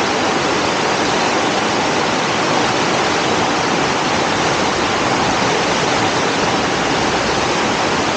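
A river in flood, its fast water rushing loudly and steadily past the bridge.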